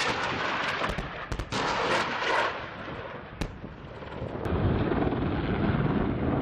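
AH-1Z Viper attack helicopter weapons fire: two dense bursts of rapid shots, then a single sharp crack. From about four and a half seconds in, a steady low helicopter rumble takes over.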